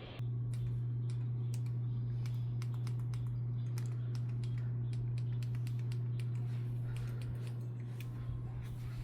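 A steady low hum comes on just after the start and holds throughout, with irregular light clicks of typing on a computer keyboard over it.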